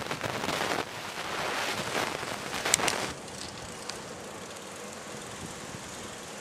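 Wind and road noise on the microphone of a camera carried on a moving bicycle. A loud rushing with surges and a sharp click about three seconds in, then a softer, steady hiss.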